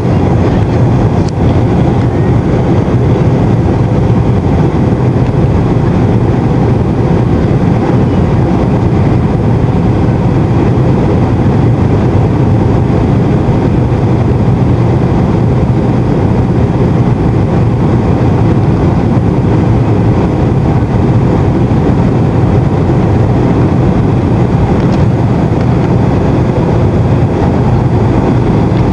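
Steady, loud cabin noise inside an Airbus A320 in flight: the low drone of the jet engines and rushing air, unchanging throughout.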